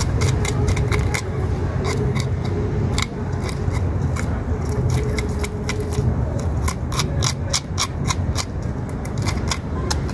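Knife scraping scales off a raw fish: quick, irregular scratchy strokes, several a second, over a low steady rumble.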